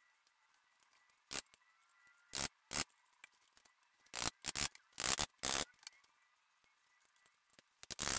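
A series of short, separate scrapes and rubs, some in quick pairs, from hands working at the main bearings and caps of an Oldsmobile 350 V8 block during a plastigauge clearance check.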